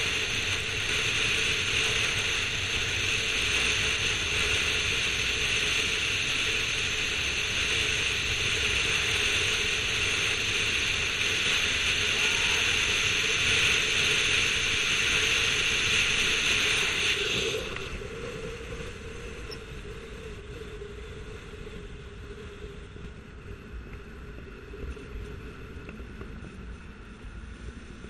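Steady wind rush and road noise of a car driving around a speedway oval, heard through an action camera mounted on the outside of the car. The noise drops sharply about two-thirds of the way through and stays quieter after.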